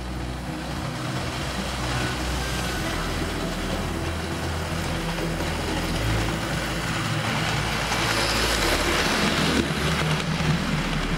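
Model train running past on the layout track: a steady rolling rumble that builds to its loudest near the end, over low sustained keyboard chords.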